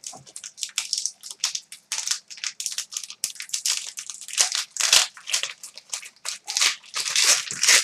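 Wrapping on a sealed box of hockey trading cards being torn open and crinkled by hand: a continuous run of sharp, rustling crackles.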